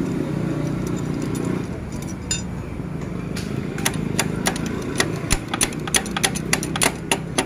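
Sharp metallic clicks and clinks, roughly three a second from about four seconds in, over a steady low hum: tools and metal parts being handled while a motorcycle starter motor is taken apart.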